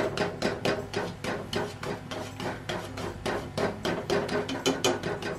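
Wooden spatula tapping and pressing down on a fries-and-egg omelette in a frying pan: rapid, uneven knocks of wood against the food and pan, about four or five a second.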